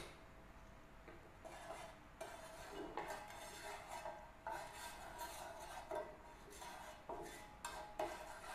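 Wooden spatula stirring and scraping oil in a nonstick frying pan, a series of short scrapes at irregular intervals.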